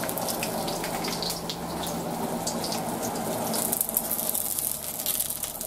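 Partly frozen pot stickers sizzling in hot sesame oil in a wok, a steady hiss broken by many small crackles and pops of spattering oil.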